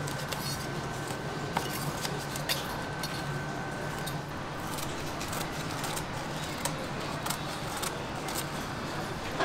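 Scattered light clicks and crackles as a thin, brittle pressed shrimp cracker sheet is peeled off a press plate and trimmed with a blade, over a steady background hum.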